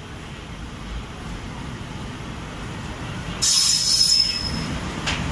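Passenger express train rolling into a station with a low rumble that grows. About three and a half seconds in, a sudden loud high-pitched screech of brakes and wheels starts, with a steady squealing tone in it, as the train slows.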